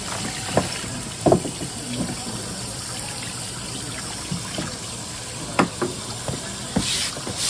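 Tap water running steadily from a faucet onto a wet plastic cutting board at a sink, with several short knocks, the loudest about a second in.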